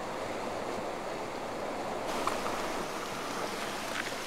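Steady rushing of a swollen, fast-flowing river in flood, with a few faint knocks near the middle and the end.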